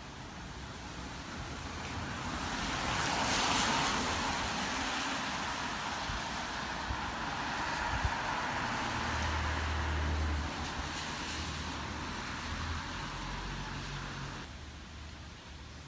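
Traffic on a wet road: tyre hiss swelling up about two seconds in, with a low engine rumble under it in the second half, then falling away abruptly near the end.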